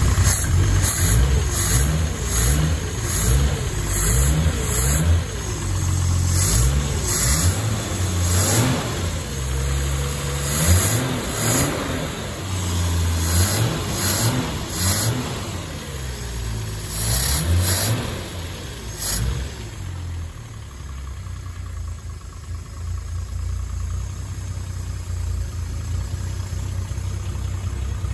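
The freshly rebuilt 2-litre straight-six of a 1967 Triumph Vitesse Mk1, on twin carburettors, revved up and down again and again by hand at the throttle linkage. About 20 seconds in it settles to a steady idle.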